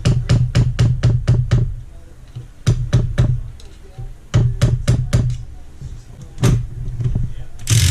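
Runs of sharp metal knocks, about five a second, in three quick bursts and a single knock, while the clutch is worked off a Honda CRF450 engine. A short burst of hiss comes right at the end.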